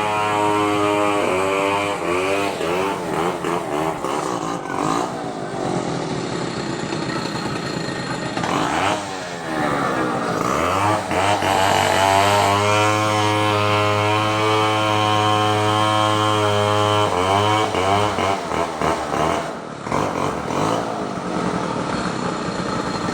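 A small petrol engine running at a high, steady speed, its pitch dipping and climbing back three times, about one second in, around ten seconds in and near seventeen seconds in.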